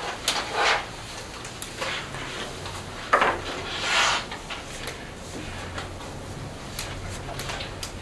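Sheets of paper rustling as printed pages are lifted, turned and shuffled on a table, in several short rustles with the loudest about half a second in and around three to four seconds in, with small scattered clicks over a faint steady low hum.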